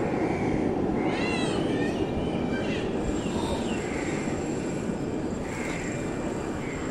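Steady rumble of a large outdoor crowd and distant jet aircraft. A high, wavering squeal rises about a second in, and a few fainter high calls follow.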